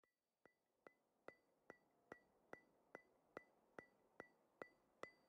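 Faint, perfectly regular ticks, about two and a half a second, each sharp with a brief high ring, a steady click-track beat.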